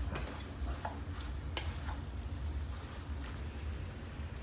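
A wooden spoon stirring a thick okra-and-tomato stew in a metal pan: a few short scrapes and knocks of the spoon against the pan over a steady low hum.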